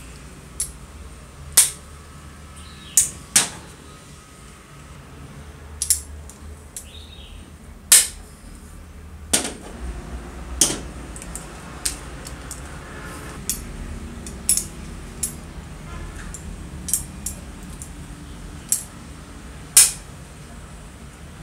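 Locking pliers clamping onto and releasing the wire connectors of an old circular saw's wiring: about fifteen sharp metallic clicks and snaps at irregular intervals over a low steady hum.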